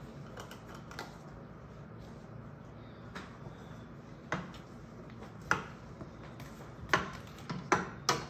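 Wooden spoon stirring chopped celery and onions in a stainless steel sauté pan, knocking sharply against the pan about five times in the second half.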